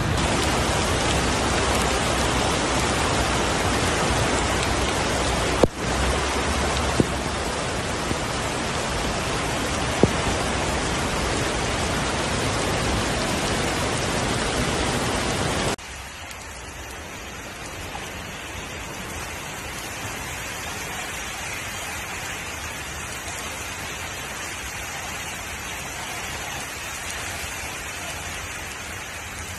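Steady rushing noise of heavy rain and floodwater churning around cars as they drive through a flooded road. About halfway through it drops abruptly to a quieter level, and there are a few sharp clicks in the louder first half.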